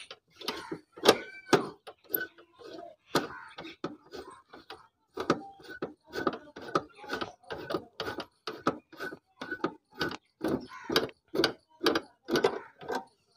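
12 mm T-wrench working the seat bolt on a Honda CD-70 motorcycle's seat rail: a run of metallic clicks and knocks, about two to three a second in the second half, as the bolt is loosened.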